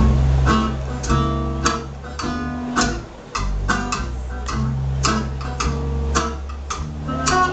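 Instrumental music: a quick tune of short, sharp notes that ring and fade, over held bass notes, with a brief break about three seconds in.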